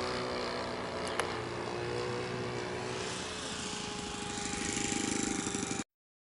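Engine of an RC P-51 Mustang model plane throttled back for landing, its drone falling in pitch as it comes in, with a sharp click about a second in. Near the end it drops to a slow putter at idle as the plane rolls on the grass, then the sound cuts off abruptly.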